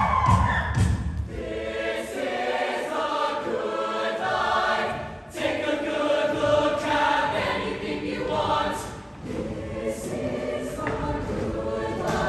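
A large mixed show choir singing in harmony, with a short break in the sound about five seconds in and another near nine seconds.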